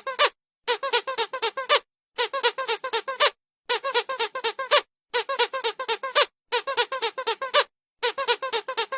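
Squeaky dog toy squeezed in quick runs of six to eight short, high squeaks, each run lasting about a second with a brief pause between, repeating steadily.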